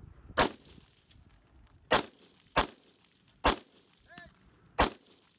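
Five shots from a semi-automatic AR-style rifle, fired one at a time at uneven intervals, each a single sharp crack.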